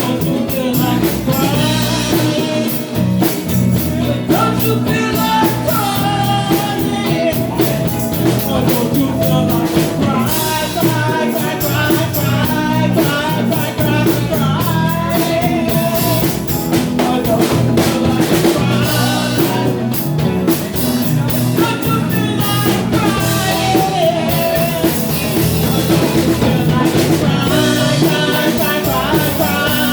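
A song playing: a sung vocal line over drum kit and guitar in a rock style.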